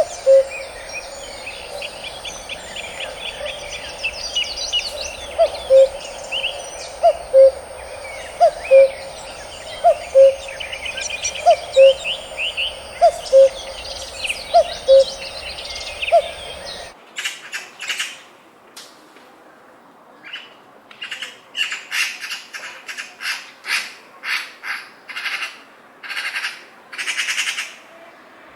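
Woodland birdsong: many songbirds singing and trilling together, with a low two-note call repeating about every second and a half beneath them. About 17 s in it cuts abruptly to a sparser recording of single birds' chirps and calls in short separate bursts over a quieter background.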